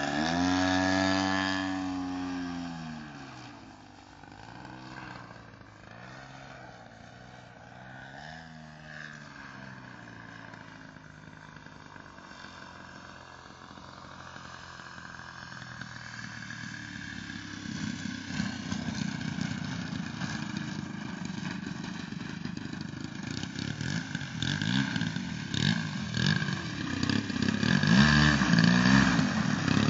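DLE 55cc single-cylinder two-stroke petrol engine of a large RC aerobatic plane, passing close overhead with its pitch bending down, then fading into the distance with a wavering note. It then grows louder again and runs rough and low, as at idle on the ground, with a short blip of throttle near the end.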